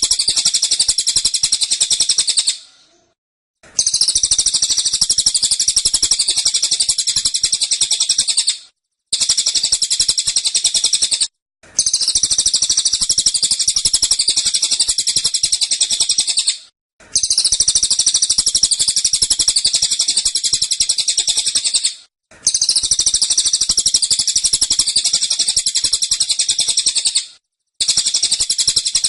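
Cililin songbird singing its rapid-fire 'tembakan' song: long runs of very fast, high-pitched repeated notes, several seconds each, broken by short pauses.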